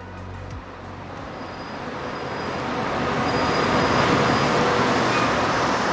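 Intro music ends within the first second, then street traffic noise swells to a peak about four seconds in and eases off again, as a vehicle passes.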